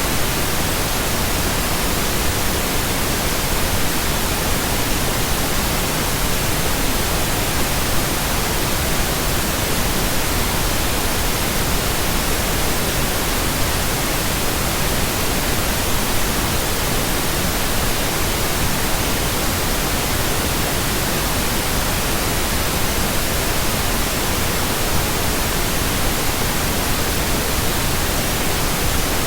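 Synthetic pink noise: a steady, even hiss spread across the whole range, unchanging throughout.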